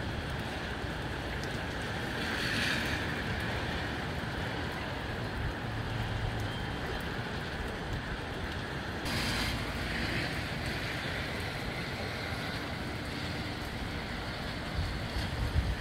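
Gusty wind rushing through trees and palm fronds and buffeting the microphone with a low rumble; gusts swell about two seconds in and again around nine seconds in.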